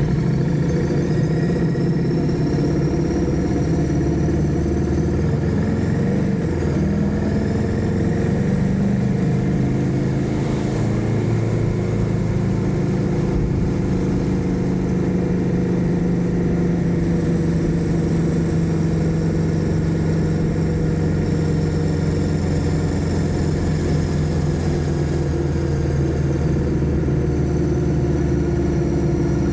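Motorcycle engine running while riding, its pitch drifting slowly up and down with speed.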